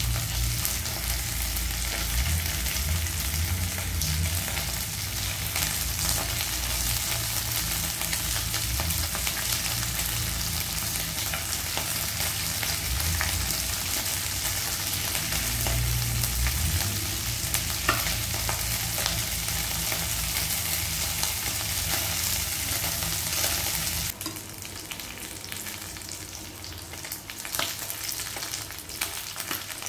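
Fish frying in hot cooking oil in a pan, a steady, dense sizzle. After about 24 seconds it drops suddenly to a quieter sizzle, with a few sharp pops and clicks near the end.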